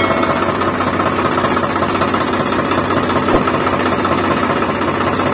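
Steady, fast-pulsing mechanical rattle of the DIY mini tractor's motor running, with no change in speed.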